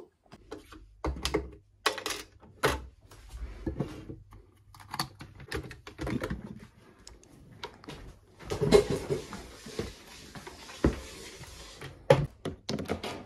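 Clicks, knocks and clatter of a white plastic Janome sewing machine and its power cord being picked up and moved, with a spell of rustling about two-thirds of the way through.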